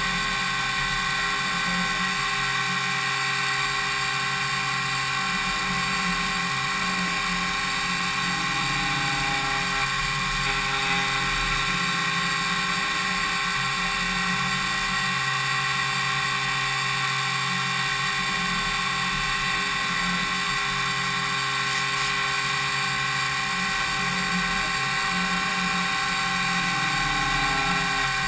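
DMU 70V five-axis machining centre's spindle milling an impeller blade: a steady whine made of several tones over a low hum, running without a break.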